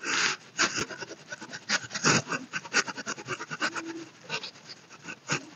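Makeup brush bristles rubbed over the skin in quick, repeated scratchy strokes, blending contour along the jaw and neck.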